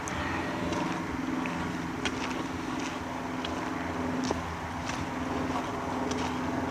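Footsteps on a forest trail, a soft crunch about every two-thirds of a second, over a steady low hum.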